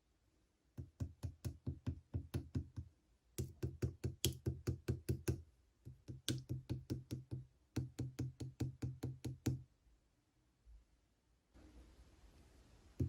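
Slime being poked and pressed rapidly, making quick, sharp clicks with a soft low thump, about five or six a second. They come in four runs of one to two seconds each, with short pauses between.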